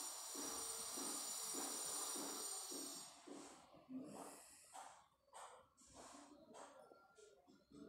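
Faint heavy breathing, snuffly from a head cold, over the soft rubbing and pressing of hands kneading flour and mashed potato in a steel plate. About three seconds in, a steady hiss gives way to separate short puffs.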